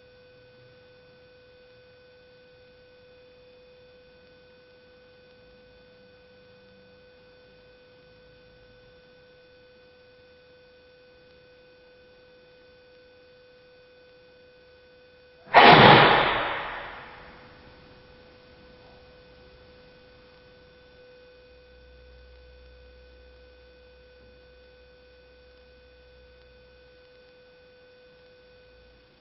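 A faint steady hum with several thin high tones, broken about halfway through by one sudden loud burst that dies away over about two seconds.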